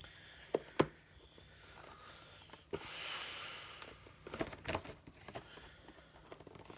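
Quiet handling of a Pokémon card pin box and its packaging: a couple of sharp clicks in the first second, a soft rustling hiss about three seconds in, and a short run of clicks and taps soon after.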